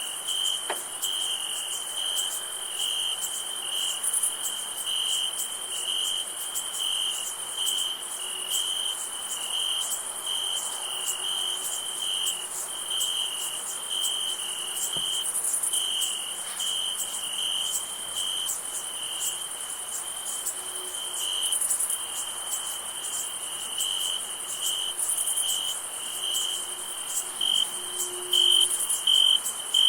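Crickets chirping in a steady chorus at night: a rapid pulsing chirp with a higher continuous insect trill above it that swells every few seconds. The chirps get louder near the end.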